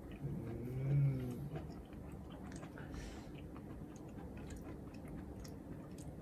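A person chewing a mouthful with soft, scattered wet clicks of the mouth. About a second in there is a short closed-mouth hum whose pitch rises and falls.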